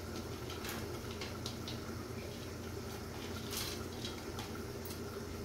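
Semolina halwa cooking in sugar syrup in a pot on a gas burner: a steady low bubbling, with a few faint taps and scrapes as raisins, almonds and cardamom are stirred in with a wooden spoon.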